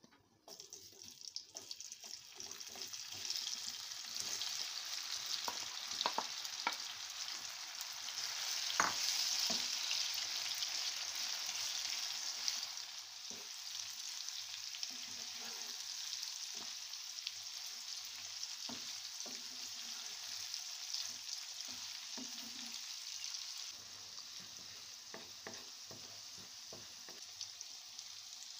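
Masala-coated okra sizzling and frying in hot oil in a nonstick wok. The sizzle starts suddenly as the okra goes in, is loudest about ten seconds in, then settles lower. A wooden spatula stirring it makes scattered knocks.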